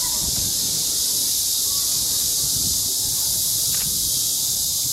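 Steady high-pitched insect chorus, typical of cicadas in the trees, with a short knock about four seconds in.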